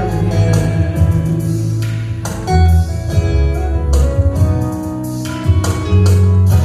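Worship song accompaniment: strummed acoustic guitar with bass, a held sung note at the start, then instrumental music between vocal lines.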